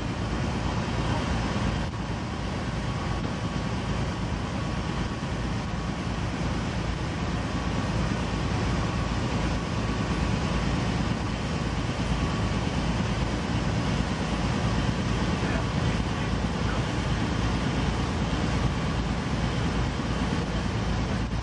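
Steady drone of a river cruise boat underway, engine rumble mixed with the rush of wind and water.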